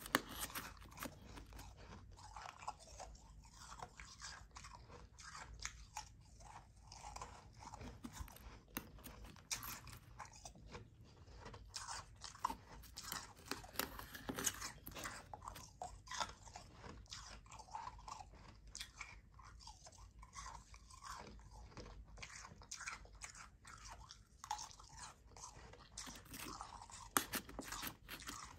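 Soft, powdery ice being chewed close to the microphone: an irregular run of crunches and crackles, with a few louder bites.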